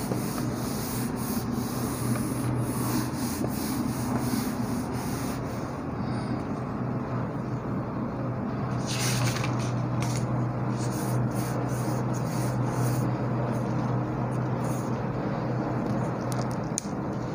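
A cloth rubbing across a whiteboard in quick back-and-forth wiping strokes, erasing marker writing, for the first five seconds or so, then a few shorter rubs. A steady low hum runs underneath.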